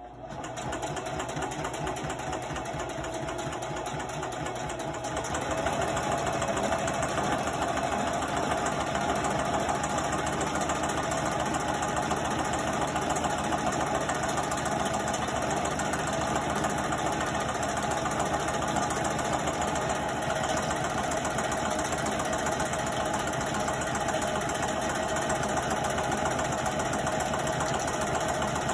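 Singer sewing machine running continuously as it stitches folded feed-sack handle strips. It builds up over the first few seconds, then runs at a steady speed.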